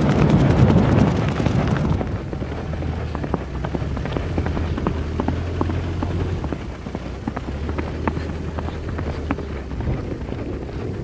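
Horses galloping for about two seconds, then an abrupt change to a four-wheel-drive SUV driving along a dirt track. Its engine is a low steady hum, with scattered light clicks.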